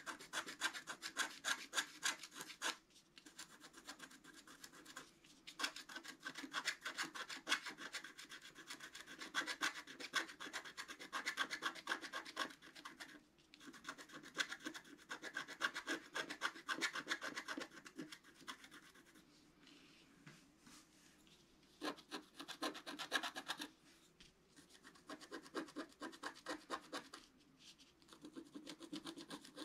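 Wooden stylus scratching the black coating off a scratch-art sheet in rapid back-and-forth strokes, in runs broken by short pauses.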